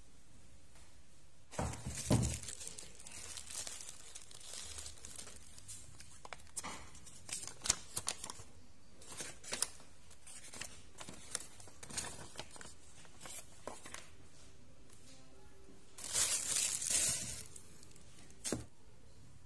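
Paper instruction leaflet being unfolded and handled: crinkling and rustling in bursts, the loudest about two seconds in and another near the end, with scattered small rustles between and a sharp tap just before the end.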